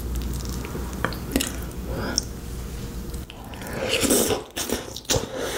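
Close-miked eating of tteokbokki: soft wet clicks as chopsticks lift the sauce-covered rice cakes, then biting and chewing of the sticky rice cakes, with a louder burst of wet mouth sounds about four seconds in.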